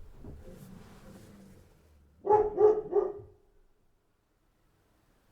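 A dog barking: a bark fades out at the start, then three quick barks come in a row a little over two seconds in.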